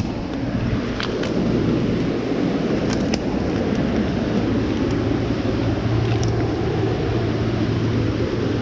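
Steady rushing noise of a river running high, with a few light clicks over it.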